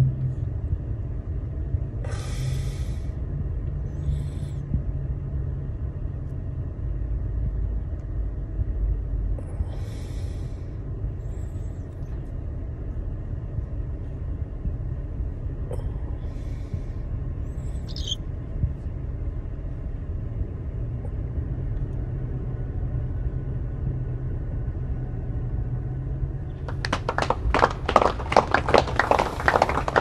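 Steady low rumble of a car running, heard inside the cabin, with a few brief rustles and a short chirp from pet cockatiels. Near the end a fast, dense rattling rhythm starts.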